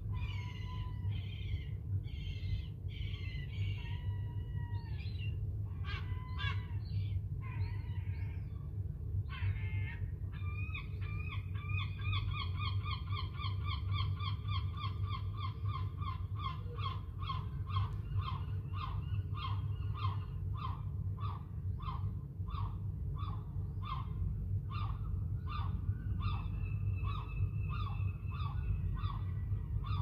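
Herring gulls calling: a string of varied separate cries, then from about ten seconds in a long even run of repeated calls, about two a second. A steady low rumble lies underneath.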